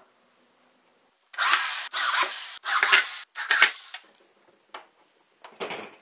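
Power drill driving screws into wood in four short bursts, followed by a couple of light clicks and one shorter burst near the end, as a metal carry handle is screwed onto the fan box's wooden top.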